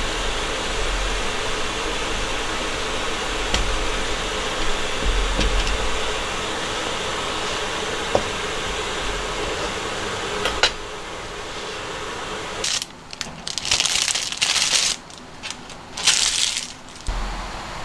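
A kitchen knife cutting through hard blocks of kiri mochi on a plastic cutting board, with a few sharp knocks of the blade against the board over a steady background noise. Later, hot water is poured over deep-fried tofu pouches in a bowl in several splashing bursts, rinsing off the surface oil.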